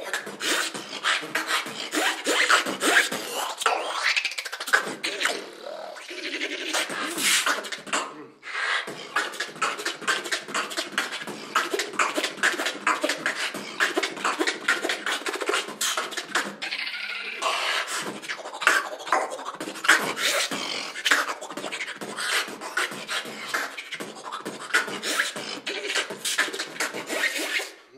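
Solo beatboxing: a fast, dense rhythm of vocal kick, snare and hi-hat sounds, with a few pitched vocal passages mixed in. There is a brief break about eight seconds in, and the routine stops abruptly at the end.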